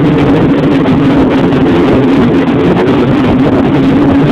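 Snowmobile engine running steadily at a constant pitch, loud and close to the microphone.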